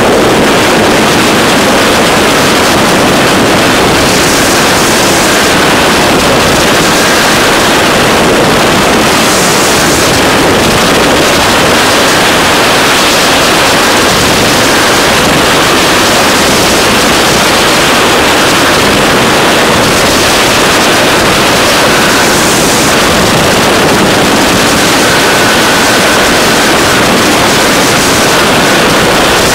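Freefall wind rushing over a helmet-mounted camera's microphone: a loud, steady rush of noise with no let-up.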